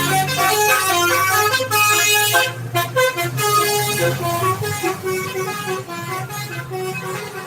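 Bus 'telolet' horn, a set of multi-tone air horns playing a quick melody of short stepped notes, getting somewhat quieter in the second half.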